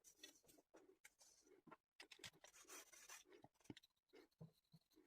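Near silence, with faint scratching and a few light ticks scattered through it.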